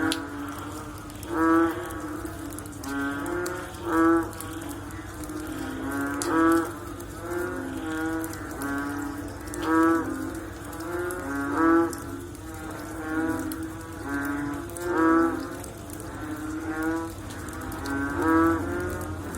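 Several frogs calling after rain: deep, drawn-out croaks repeating every second or two, some louder and nearer, others fainter, over a faint steady low hum.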